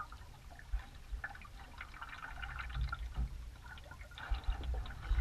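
Water dripping and trickling in small splashes, with a few low thuds near the end.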